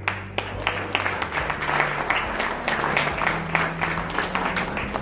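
Audience clapping and applauding, with a low music bed underneath.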